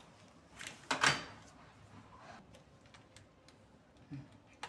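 Handling clicks and knocks at an electrical distribution board as a miniature circuit breaker is worked on, with one louder clack about a second in.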